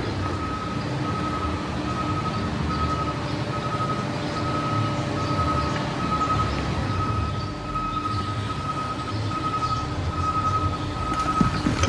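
Heavy diesel machinery running while a hydraulic grapple claw packs trash down into the trailer. A high backup-alarm beep repeats evenly over the engine rumble.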